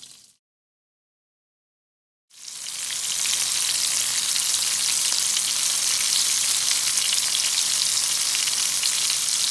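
Batter-coated mushroom slices frying in hot oil in a pan, a dense sizzle full of fine crackles. The sound drops out completely for about two seconds near the start, then fades back in and holds steady and loud.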